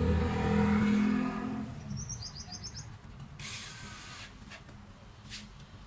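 A small electric power-tool motor runs with a steady whine and dies away about a second and a half in. A bird then gives a quick run of high chirps, followed by a short hissing rush.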